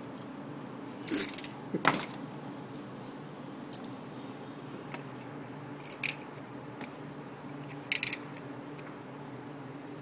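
Snap-off utility knife cutting and scraping into a coaxial cable's braid and foam dielectric: a few short crisp scrapes and clicks, the sharpest about two seconds in and a double one near the end, over a steady low hum.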